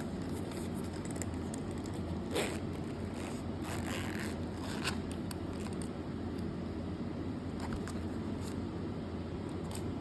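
Handling of a crossbody phone case purse: short rustling and scraping sounds, the loudest about two and a half seconds in and again near five seconds, over a steady low hum.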